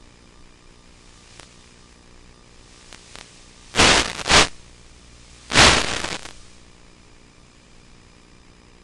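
Steady hiss of radio static from an analog FPV video link, broken by two loud bursts of static, a double one about four seconds in and a longer one about a second and a half later, as the signal breaks up.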